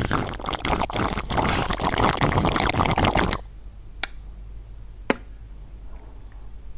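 Clear ice crackling and crunching densely for about three and a half seconds, cutting off suddenly, followed by two sharp clicks about a second apart, like fingernail taps on hollow ice blocks.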